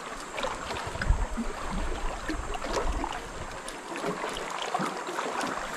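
Water lapping and trickling, with scattered light clicks and knocks throughout.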